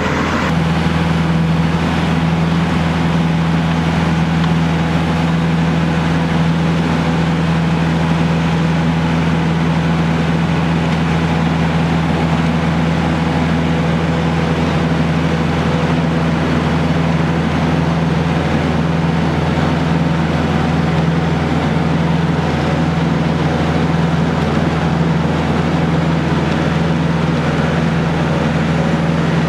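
Tractor-drawn turf planer and its tractor engine running, a steady, unchanging mechanical hum as the machine planes turf and infield clay.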